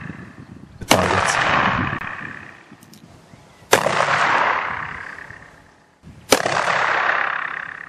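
.44 calibre percussion (cap-and-ball) revolver firing black-powder combustible paper cartridges: three shots roughly three seconds apart, each followed by a long fading echo. Faint clicks come between the first two shots.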